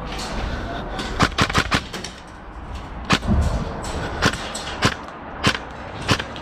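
Airsoft guns firing during a game: about nine sharp snapping shots, a quick run of four a little after a second in, then single shots at irregular intervals.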